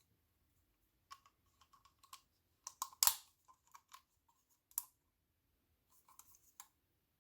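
Keys of a cute cat-themed computer keyboard being typed on: irregular runs of short key clicks with brief pauses, one louder clack about three seconds in.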